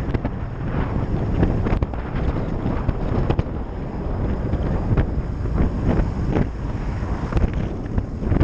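Wind buffeting a helmet-mounted camera microphone on a moving motorcycle: a gusty low rumble, with road and engine noise under it.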